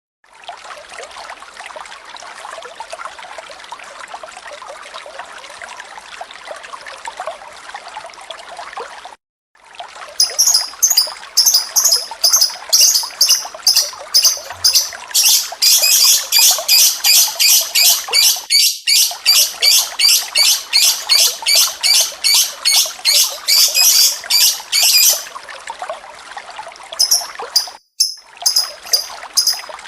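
Running water trickling steadily. About a third of the way in, a bird breaks in with loud, high, rapid chirps repeated about three a second, kept up for some fifteen seconds. The chirping stops, the water continues alone, and the chirping starts again near the end.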